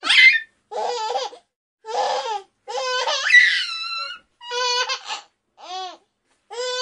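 High-pitched cartoon voices of baby birds: about seven short squeaky vocal calls with pauses between them, each sliding up and down in pitch.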